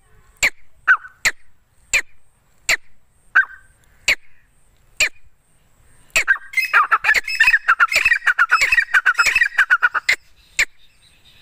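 Female grey francolin calling: short sharp notes about every two-thirds of a second, then a rapid run of chattering notes for about four seconds, and one more note near the end.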